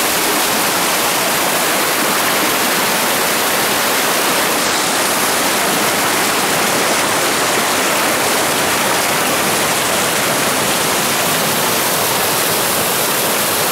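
Fast-flowing river water rushing through whitewater rapids, a steady loud rush with no let-up.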